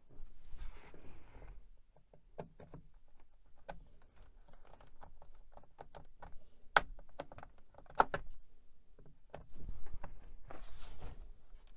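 Metal screwdriver prying at the plastic back cover of an all-in-one computer: irregular clicks and scraping, with two sharp snaps about seven and eight seconds in, and rustling handling noise near the start and near the end.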